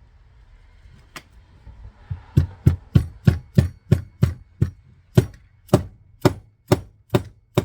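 Sharp taps driving a tight-fitting part back onto a T56/TR6060 clutch slave cylinder during reassembly with a billet aluminium guide. One tap comes about a second in, then a steady run of about fifteen taps at roughly three a second.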